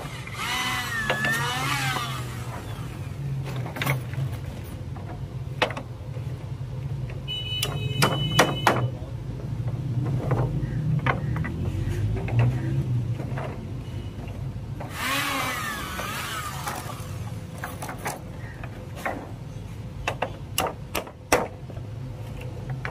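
A corded electric drill runs briefly near the start, its pitch rising and falling with the trigger. Scattered knocks and clatter follow as wooden rungs are handled and laid across the ladder rails, over a steady low hum.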